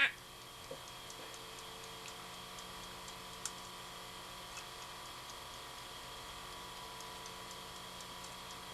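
Wind-up kitchen timer ticking faintly and evenly, with one sharper click about three and a half seconds in, over a steady electrical hum.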